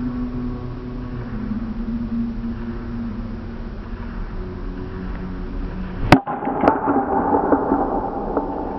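Baseball bat striking a ball: one sharp, loud crack about six seconds in, followed by a smaller knock about half a second later. A steady low hum runs underneath before the hit.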